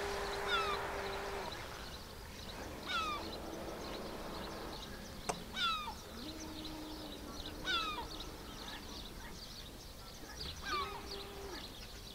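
Distant RC racing catamaran's motor fading away across the lake, then heard again faintly in short steady runs that rise in pitch as it is throttled up. Over it a bird calls repeatedly, each call a quick downward slide, about every two to three seconds.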